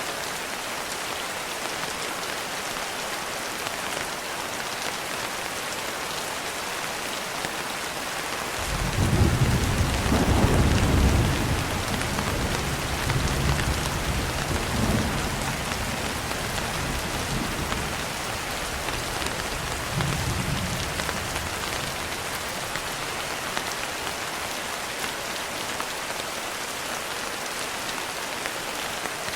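Steady rain falling, with a roll of thunder that rumbles in about a third of the way through, swells a few times and dies away, leaving the rain alone.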